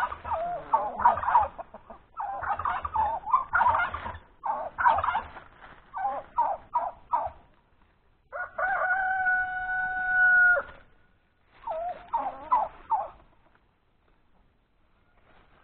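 Domestic turkeys gobbling in several rapid warbling bursts, then a rooster crowing about eight seconds in, ending in one long held note, followed by another short gobble a few seconds later.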